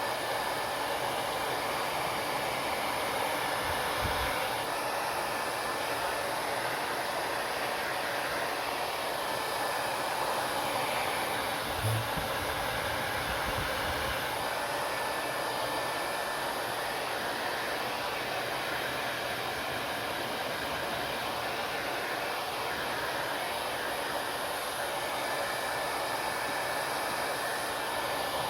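Hair dryer running steadily, a constant airy hiss with a faint steady whine in it. There are two soft low bumps, about four and twelve seconds in.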